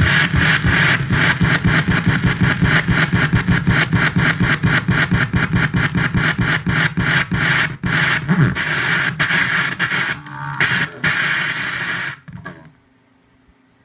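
Turntable stylus riding a collaged art vinyl record, giving loud crackling noise with rapid, evenly spaced clicks over a low hum. It cuts off near the end, leaving only a faint hum.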